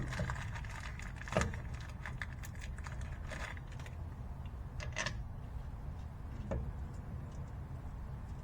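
Metal bolts and hardware clinking and rattling in hand as a starter bolt is fitted into a transmission bell housing: a few sharp clicks and small jingles, the clearest about a second and a half in and about five seconds in, over a steady low hum.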